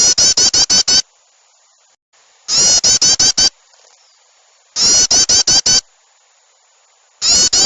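Bird-lure recording of agitated small-bird calls: four bursts of quick, high chattering notes, about seven or eight notes each, repeating roughly every two and a half seconds.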